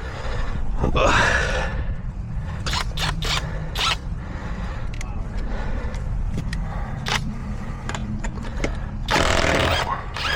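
Metal scraping and a few sharp clanks as tools and a jack stand are handled, over a steady low rumble.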